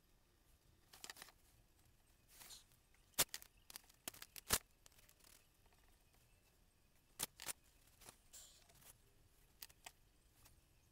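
Faint desk handling sounds: a scatter of sharp clicks and taps with a few brief rustles and scrapes as a small painting board, masking tape and a paintbrush are handled on a cutting mat.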